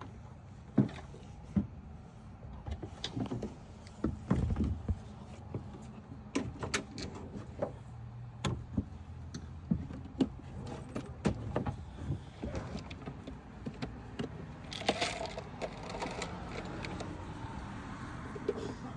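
Scattered clicks, knocks and rattles of hand work on a pickup's blind-spot sensor mount, as tools and small parts are handled, with a short spell of rustling and scraping near the end.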